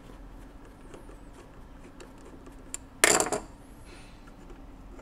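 Faint ticks of a screwdriver working a side-plate screw of a 1917 Monroe Model F mechanical calculator, then, about three seconds in, one sudden loud metallic clatter lasting under half a second.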